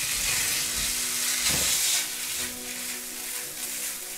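Spaghetti and vegetables sizzling in an oiled pan as they are tossed with tongs; the sizzle softens about two seconds in.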